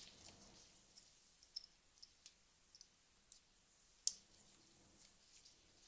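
Faint clicks of plastic wiring connectors being handled and snapped together in a motorcycle's wiring harness. There are a few light ticks, then one sharper click about four seconds in.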